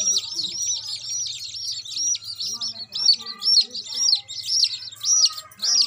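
Wet, dye-coloured chicks peeping loudly and rapidly, several short rising-and-falling peeps a second without a break.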